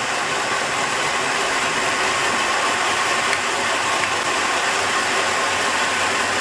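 Heljan Class 45 OO gauge model locomotive's motor and drive running steadily on a rolling road: a continuous mechanical whir with a faint whine. The model is fresh out of the box and not yet run in.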